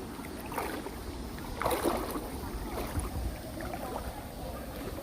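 Steady outdoor rumble of wind buffeting the microphone over flowing stream water, with a few faint, indistinct sounds in the background.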